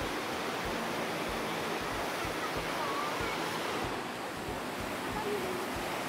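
Steady roar of a 77-foot waterfall, the Great Falls of the Passaic River, pouring into the rocky gorge. Gusts of wind bump the microphone now and then.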